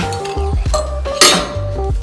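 Background music with a heavy bass, and just past a second in a sharp metallic clank as a cable machine's weight-plate stack is set down at the end of a set.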